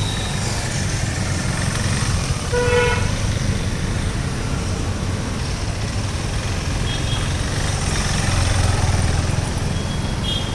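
Road traffic noise, a steady low rumble of vehicles, with a short vehicle-horn toot about two and a half seconds in.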